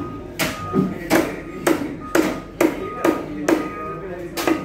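Large knife chopping a skinned leather fish into chunks on a wooden chopping block: about eight sharp chops, roughly two a second.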